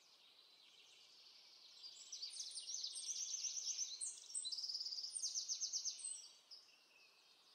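Songbirds singing in woodland: a run of quick, high trills and chirps over a faint steady hiss, starting about two seconds in and fading out a second before the end.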